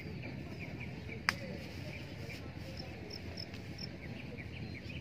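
Outdoor ambience with short high chirps repeating about twice a second over a low steady background rumble, and one sharp click about a second in.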